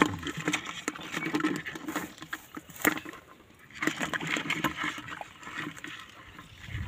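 Field crabs scrabbling and clicking against the sides of a plastic bucket as they are prodded with a grass stem, with a sharp click about three seconds in.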